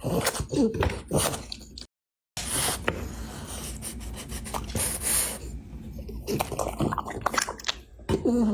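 A dog eating from its bowl: snorting, wet chewing and smacking, with the food and bowl scraping. The sound cuts out to dead silence for a moment about two seconds in.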